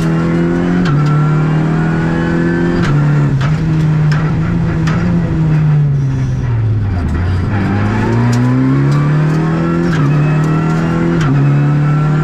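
Renault Clio Rally5's turbocharged 1.3-litre four-cylinder engine at full effort, heard from inside the cockpit: held high through the gears, it falls to low revs about seven seconds in as the car slows for a bend, then revs up hard again. Scattered sharp clicks are heard over it.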